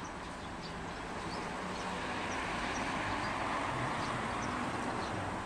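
Steady outdoor street noise that swells gently and eases off, like traffic passing, with faint short high chirps scattered through it.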